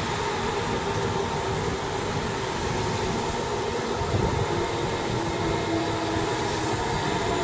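Stuttgart S-Bahn electric multiple unit running past the platform: a steady rumble of wheels on rail, with the electric drive's whine held as a few steady tones.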